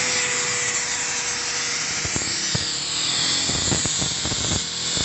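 Electric angle grinder running with its disc against a motorcycle exhaust pipe: a steady, high grinding hiss, with a few short knocks in the second half.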